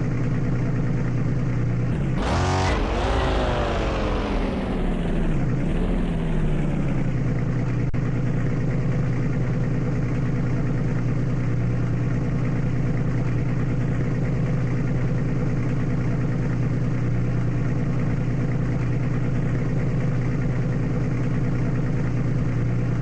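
Bentley Bentayga's engine revving up briefly about two seconds in, its pitch sinking back over the next few seconds, then running steadily at a constant low note.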